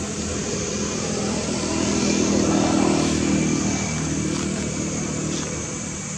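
A motor vehicle's engine passing by: it grows louder to a peak about halfway through, then fades away.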